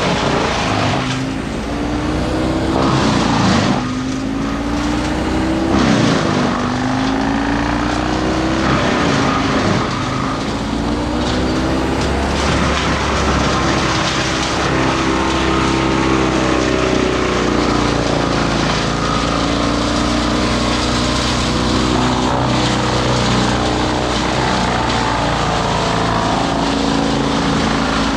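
Two-stroke chainsaw engine revving up and down repeatedly, then running more steadily at high speed.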